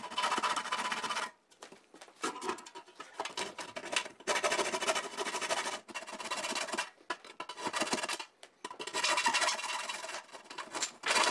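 A 10-inch hand file rasping back and forth in a small rectangular cutout in a soft aluminum panel, taking metal off the edges and corners. It comes as a string of rough strokes, each up to about a second long, with short pauses between them.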